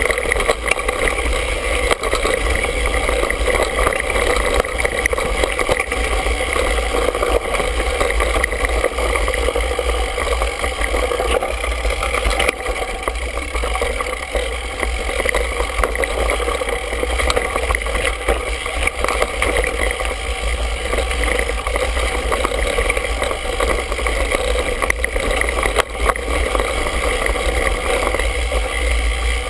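Mountain bike riding over a dirt singletrack, heard through a handlebar-mounted GoPro in its housing: a loud, steady rumble of tyres, vibration and wind, with a few short knocks from bumps.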